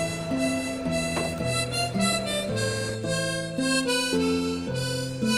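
Background music: a melody of held, reedy notes that changes pitch about every half second over lower sustained notes.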